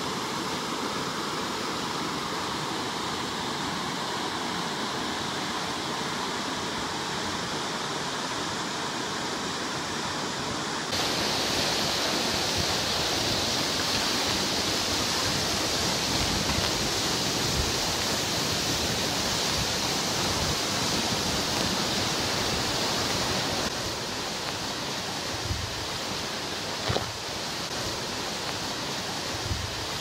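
Waterfall pouring into a rock pool: a steady rush of falling water. It is louder and hissier from about a third of the way in until about four-fifths through. A short thump comes near the end.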